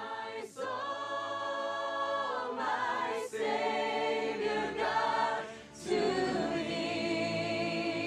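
A choir singing, the voices holding long notes that change every second or so.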